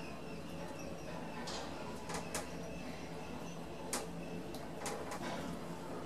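Lift car travelling in the shaft: a steady machine hum with irregular clicks and knocks from the shaft equipment as the car passes the landings.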